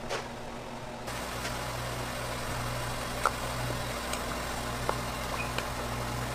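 Water boiling hard in a wide pan over a gas burner, with a steady low hum of kitchen equipment beneath, starting about a second in. A few sharp splashes and clicks as whole scored tomatoes are dropped into the boiling water to blanch.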